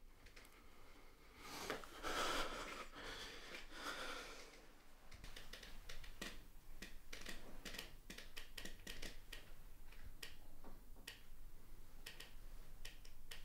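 A person breathing out hard and wheezily for a few seconds, followed by a run of faint, irregular clicks and taps.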